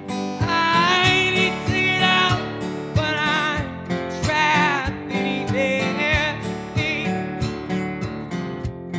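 Acoustic guitar strummed in a steady rhythm under a male voice singing long, wavering notes with vibrato. The voice stops about seven seconds in, leaving the guitar alone.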